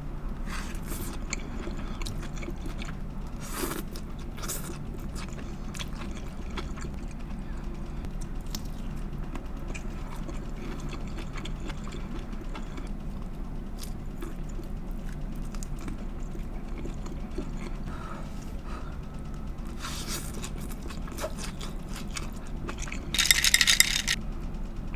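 A person chewing and biting a shrimp and heart of palm stir fry close to the microphone, with small clicks and scrapes, over a steady low hum. About 23 seconds in comes one loud, brief burst of noise.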